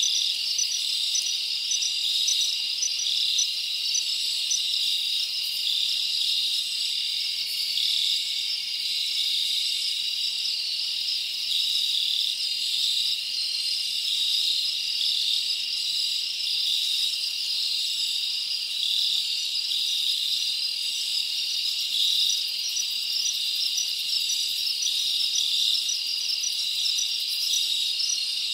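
Steady high-pitched chorus of night insects, a continuous trill with quick chirps repeating over it.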